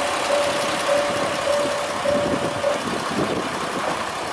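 JR Kyushu diesel railcar running as it moves along the station platform, its engine noise steady. Over it an evenly repeating beeping tone sounds roughly once every 0.7 s and stops about two-thirds of the way through.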